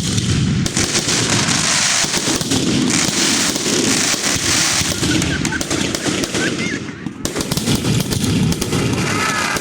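Fireworks going off in a dense, continuous crackle of rapid bangs, dipping briefly a little after the middle.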